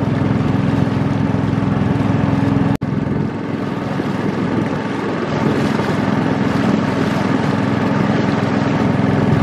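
Long-tail boat engine running steadily under way, with a sudden break in the sound about three seconds in.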